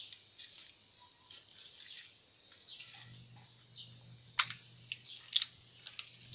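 Small birds chirping, with crisp clicks and rustling of hands working tamarind pods and leaves; two sharp clicks a little over four and five seconds in are the loudest sounds.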